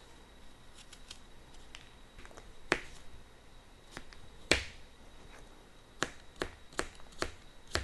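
Kitchen knife cutting a peeled apple on a thin, flexible plastic cutting board: sharp single knocks of the blade on the board, two spaced well apart, then a quicker run of four or five chops, about two a second, in the last two seconds.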